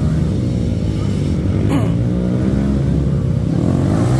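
Yamaha WR155 single-cylinder four-stroke dirt bike engine running under way, its pitch rising and falling with the throttle.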